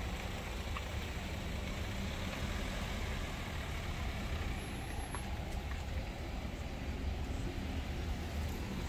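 Car engines idling and creeping forward in a slow-moving queue: a steady low rumble of traffic.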